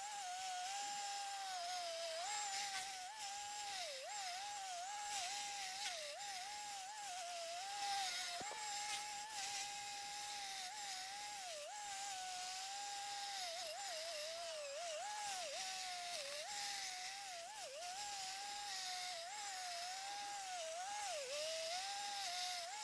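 Stump grinder running at high speed, a steady whine whose pitch dips briefly and recovers over and over as the cutter wheel bites into the stump and the engine takes the load.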